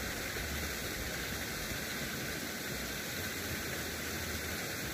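Steady, even background hiss, with a low rumble through most of it that eases off near the end.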